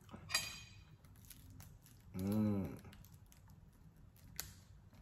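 A man eating fried fish with his fingers: a couple of sharp mouth smacks, and a short closed-mouth hum "mm", rising then falling in pitch, about two seconds in.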